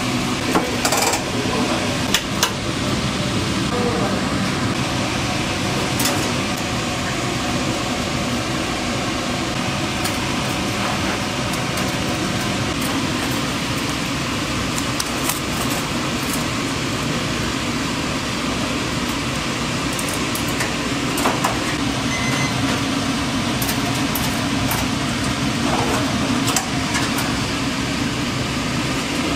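Steady commercial-kitchen noise: a constant hum and hiss of cooking equipment, broken by a few sharp clicks and clinks of utensils.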